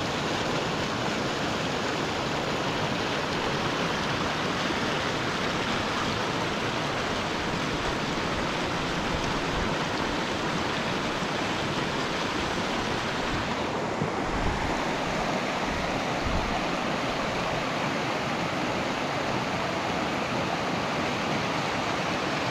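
Mountain creek rushing over rocks, a steady, unbroken sound of running water.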